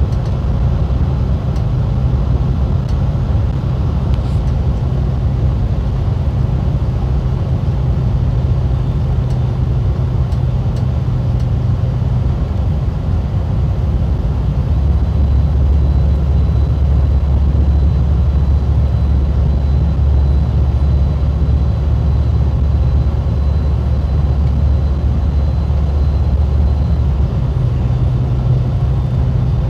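MCI D4505 motorcoach cruising at highway speed, heard from inside the cabin: a steady, loud low drone of engine and tyre noise. About halfway through the drone drops to a deeper, heavier note, and it returns to its earlier pitch near the end.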